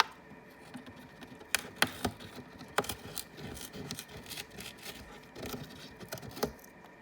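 A parrot's beak crunching and tearing at a chew item, a run of irregular sharp clicks and cracks, the loudest snaps about one and a half to three seconds in.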